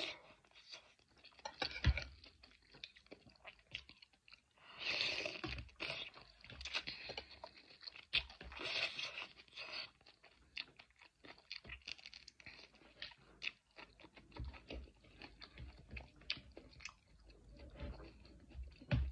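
A person chewing a mouthful of pasta noodles and vegetables close to the microphone: many small wet mouth clicks and crunches, with two longer slurps or sucking sounds about five and eight seconds in.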